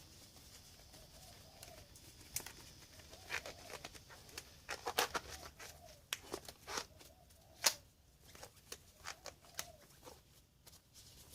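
Faint, scattered clicks and small knocks from tyre repair tools and plug strips being handled, the sharpest about five and nearly eight seconds in.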